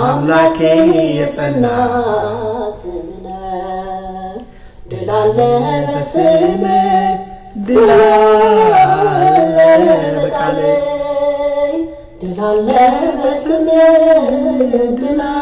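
A man singing an Ethiopian Orthodox hymn (mezmur) alone, with no instruments, in long held, gliding phrases with short breaths between them.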